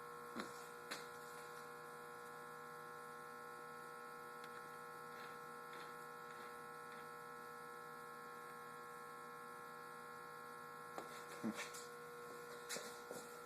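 A steady faint electrical hum, with scattered small clicks and taps of hand tools and metal engine parts being handled. There are a couple of clicks about half a second in, faint ticks in the middle, and a cluster of louder taps near the end.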